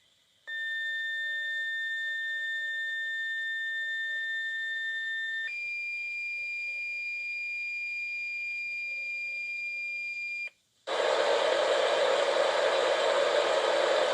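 NOAA Weather Radio broadcast heard on a receiver: a steady electronic tone starts about half a second in and steps up to a higher steady tone about five seconds later. About ten seconds in it cuts out and loud hiss of radio static takes over: the station has gone off the air.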